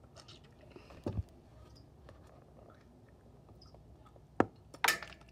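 Quiet chewing of jelly beans. There is a soft thump about a second in, then a sharp click and a short rustle near the end.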